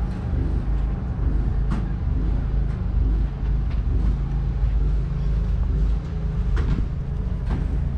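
A diesel engine running steadily at idle, a low even drone, with a few short sharp clicks.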